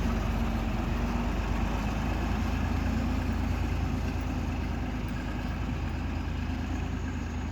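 Steady low drone of farm machinery running, easing off slightly toward the end.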